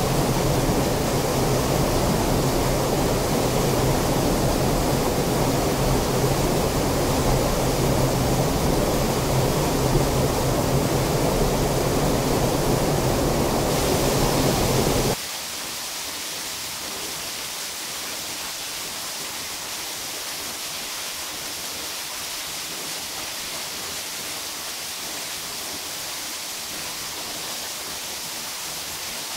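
Underground waterfall swollen by heavy rainfall, pouring into a cave pool with a loud, steady rushing. About halfway through it cuts to a smaller stream of water splashing down a cave wall, quieter and hissier, without the deep rumble.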